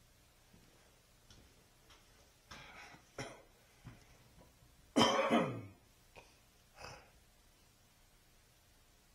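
A man clearing his throat once, about five seconds in, in a short rough burst that drops in pitch, with a few faint knocks and rustles before and after.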